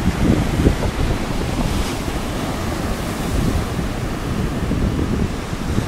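Rough surf breaking and washing up the beach, a continuous roar of water with a brief swell of hiss about two seconds in, while wind rumbles on the microphone.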